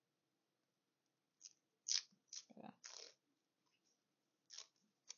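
Paper backing crackling and rustling as it is picked and peeled from a small fabric piece with the fingers, in several short bursts starting about a second and a half in and again near the end.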